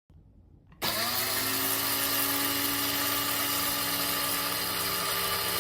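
Bodum Bistro electric blade coffee grinder motor switching on about a second in, spinning up quickly and then running at a steady high whine.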